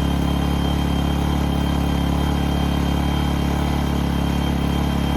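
A-iPower SUA1500i portable inverter generator's small gasoline engine idling steadily, warming up after a cold start with the choke off and no load on it.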